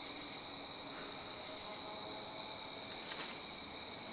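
Crickets chirping in a steady, high-pitched chorus, with a faint click about three seconds in.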